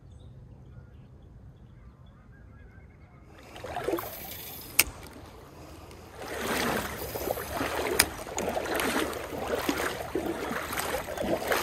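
Faint stream ambience, then about three and a half seconds in a louder rushing water-and-handling noise sets in, swelling and easing roughly once a second, as a spinning rod is cast and its reel cranked through a retrieve. Two sharp clicks come a few seconds apart.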